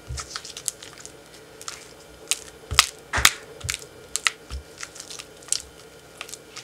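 Silicone spatula mashing and smoothing softened cream cheese in a glass bowl: irregular sticky squishes and taps of the spatula against the glass, several a second.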